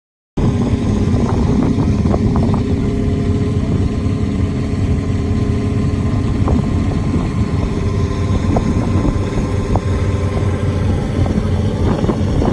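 Engines of a line of amateur endurance race cars running and idling together in a queue, a steady low drone of mixed engine notes with a few sharp clicks scattered through it.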